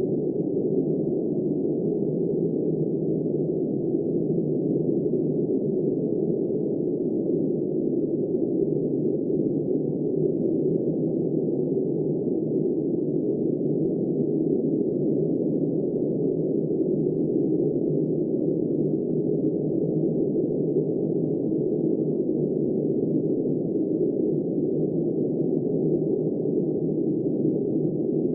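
Steady, dull wind rushing noise, muffled with no hiss on top and no gusts or changes.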